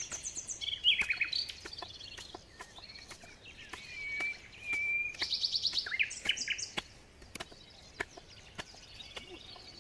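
A fixed-blade knife shaving and blunting the sawn end of a wooden stick in short, irregular scraping cuts. Wild birds sing with trills and chirps over it.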